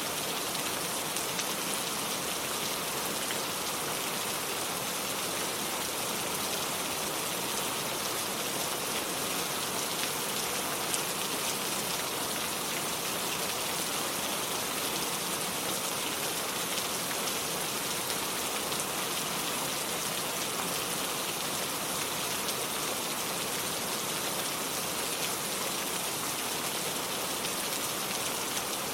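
Steady rain falling and pattering on hard surfaces, an even hiss of many fine drops with no pause, and one slightly louder drop or tap about eleven seconds in.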